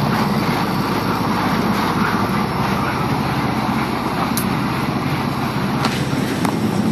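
Passenger boat's engines droning steadily, heard from inside the cabin, a low hum under a broad rushing noise. A few light clicks in the second half.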